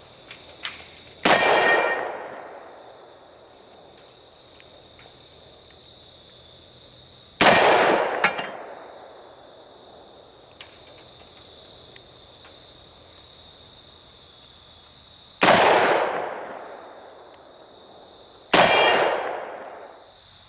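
Four .357 Magnum shots from a Ruger GP100 revolver, fired at an unhurried, uneven pace, each followed by the ringing clang of a steel target being hit.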